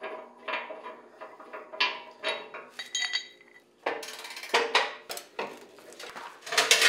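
Hand tools clinking and knocking on the steel of a Jeep rear bumper and its mounting bolts as the bumper is unbolted: a string of short metallic clinks and knocks, one ringing briefly about three seconds in.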